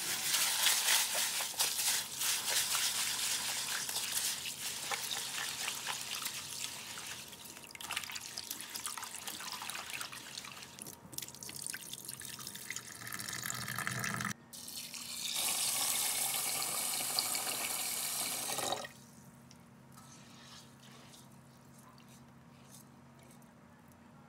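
Kitchen tap running into a sink, the water splashing unevenly as things are rinsed under it. The flow breaks off about 14 seconds in, then runs as a steadier stream for a few seconds and is shut off about 19 seconds in.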